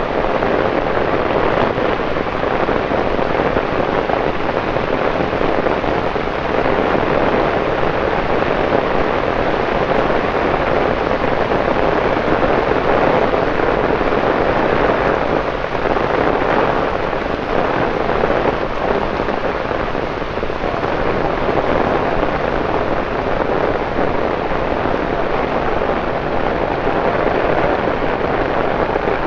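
Torrential rain pouring onto wet paving, a dense steady hiss of rain hitting the pavement.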